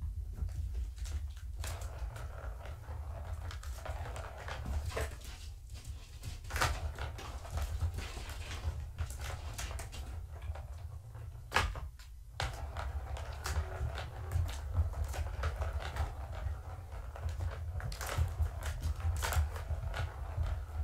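Kittens playing with a Catit plastic trackball toy: scattered clicks, knocks and rattles from the ball batted around its circular track and from scampering paws, over a steady low hum.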